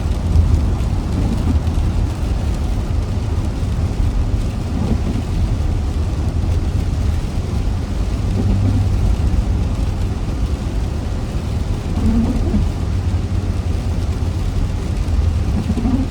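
Car driving in the rain: a steady low road-and-engine rumble under the hiss of rain, with faint short sounds recurring every three or four seconds.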